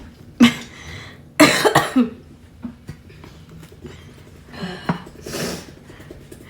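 A person coughing and clearing the throat in sudden blasts: a short one about half a second in, a louder double cough at about one and a half seconds, and a weaker bout near five seconds.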